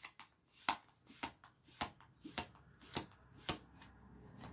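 A deck of reading cards shuffled by hand: a run of crisp card slaps and riffling clicks, about two to three a second.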